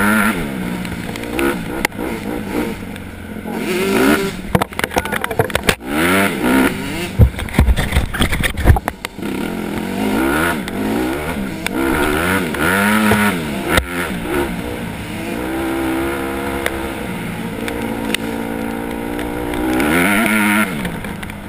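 Dirt bike engine revving up and dropping back over and over as the rider works the throttle and shifts along a muddy trail, with a few sharp knocks near the middle.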